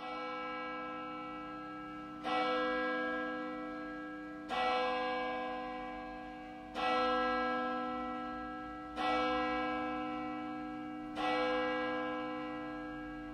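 A bell tolling slowly: six strokes evenly spaced about two seconds apart, each ringing on and fading into the next.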